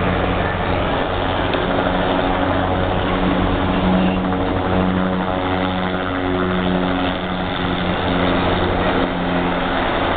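Sheriff's helicopter flying low and close, its rotor and engine making a loud, steady drone.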